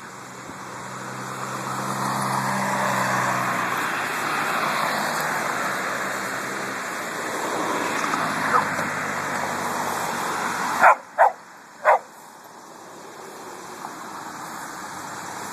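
A vehicle passes, its engine and tyre noise swelling and then fading over about ten seconds; then a chihuahua barks three times, short and high, in quick succession.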